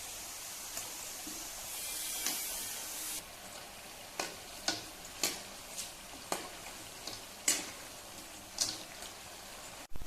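Murukku deep-frying in hot oil, a steady sizzle that drops abruptly about three seconds in, then quieter frying with sharp crackles every second or so.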